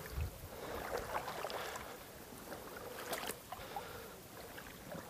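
Faint sloshing and lapping of pond water, with a few small scattered splashes and rustles.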